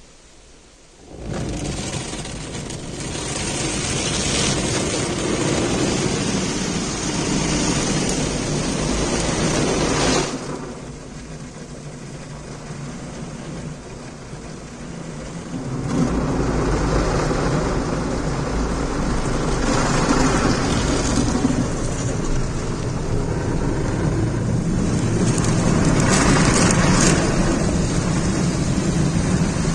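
Automatic car wash heard from inside the car: water spray and rotating brushes scrubbing over the windshield and body, a loud steady rushing. It starts suddenly about a second in, eases off for a few seconds midway, and comes back at full strength.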